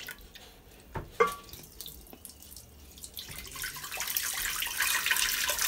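Sorrel drink poured from a measuring jug through a fine-mesh strainer into a stainless steel pot: a steady splashing stream that starts about three seconds in and grows louder. Before it, two light knocks about a second in, the second with a short ring, as the jug is dipped into the glass bowl.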